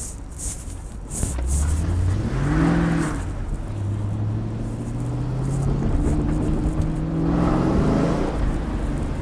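Chevrolet Camaro Z28 V8 running through aftermarket headers and exhaust, accelerating. The engine note rises for about two seconds, drops at a gear change, then climbs steadily for about five seconds before easing off near the end.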